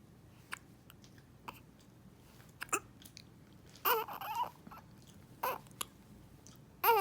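Newborn baby hiccuping: short sharp hiccups every second or so, some with a little squeak of voice. A brief whimper comes about four seconds in, and a louder cry starts near the end.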